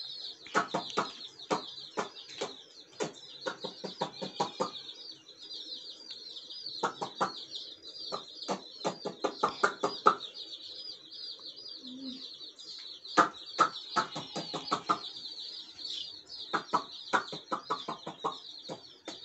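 A flock of young chicks peeping continuously: many overlapping, high-pitched little peeps. Runs of quick, lower-pitched sounds come and go several times over the peeping.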